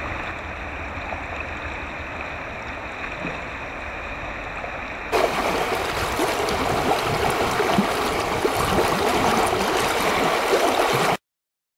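River water running over rocks, a steady rushing. About five seconds in it jumps louder and closer, with splashing and gurgling at the water's edge, then cuts off suddenly.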